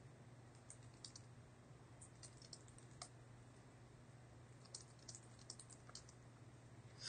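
Faint typing on a computer keyboard: scattered keystroke clicks in small irregular bunches, over a low steady hum.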